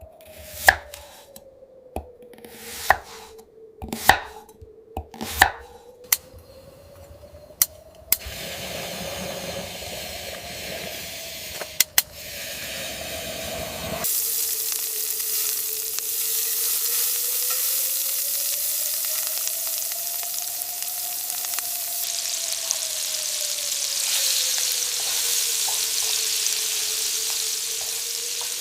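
Knife chopping on a board, about one sharp knock a second, then food frying in a hot pan with a steady sizzle that grows louder about halfway through. A faint tone slowly rises and falls in pitch underneath.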